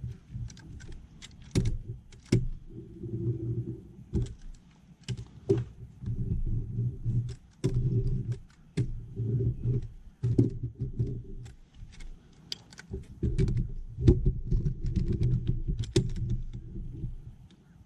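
Hand pressure roller rolled back and forth over adhesive-backed closed-cell foam deck padding, pressing it down: a low rumble in repeated strokes, broken by many sharp clicks and knocks.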